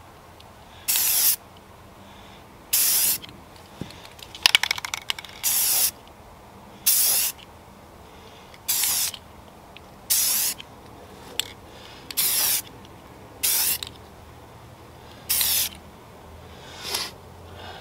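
Aerosol spray-paint can hissing in about ten short bursts, each about half a second, a second or two apart, as paint is dabbed along stencil edges. There is a brief rattle about four and a half seconds in.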